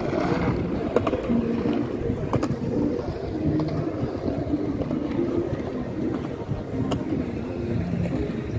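Outdoor ambience along a busy walkway: a steady low rumble with faint scattered clicks and brief low tones.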